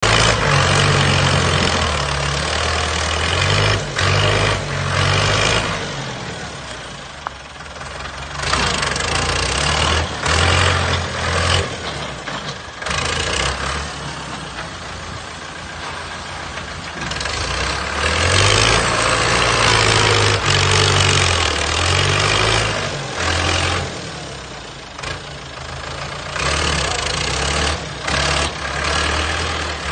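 Heavy machinery diesel engines running and working under load, the engine note rising and falling. The sound changes abruptly every few seconds.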